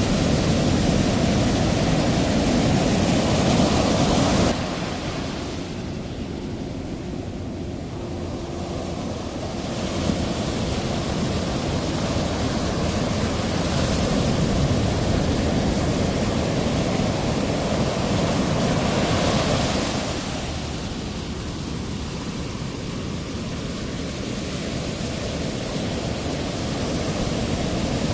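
Ocean surf, a steady rushing noise of waves. It drops abruptly in level about four and a half seconds in and swells again later.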